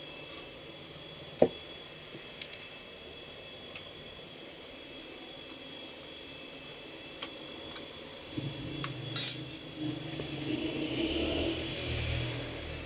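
Clinks, taps and knocks of metal and plastic computer parts being handled while an all-in-one computer is taken apart: one sharp knock about a second and a half in and a few light ticks, then from about eight seconds a longer stretch of rubbing and clattering.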